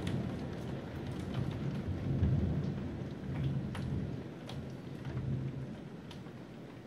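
Thunder rumbling, swelling to its loudest about two seconds in and slowly dying away, with scattered raindrops tapping close by.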